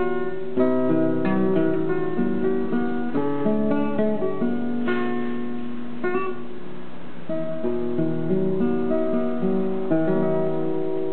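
Classical guitar played fingerstyle: a slow run of picked notes over arpeggiated chords, several notes ringing together.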